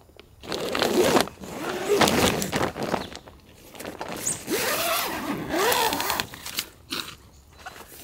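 A zipper pulled in several long, scratchy strokes, with a few short clicks near the end.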